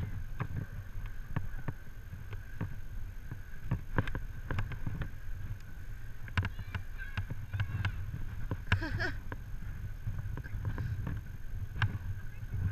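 Wind rumbling on the microphone during an abseil down a tower wall, with irregular clicks and knocks from the rope and gear as the climber steps and bounces down.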